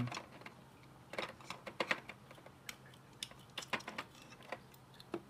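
Irregular small plastic clicks and taps from a plastic LED lamp housing and its driver board being handled and worked apart by hand, in two loose clusters.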